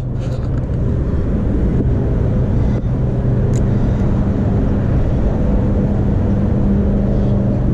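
Steady noise of busy road traffic, with a constant low engine hum underneath.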